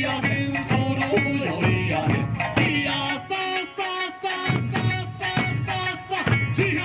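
Music with a steady beat and a melody, the bass dropping out briefly in the middle.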